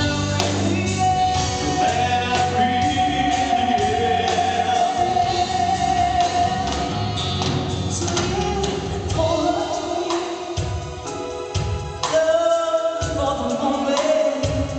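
A man and a woman sing a slow rock ballad as a duet over a live band with drums, with long held vocal notes. By the second half the woman sings on alone.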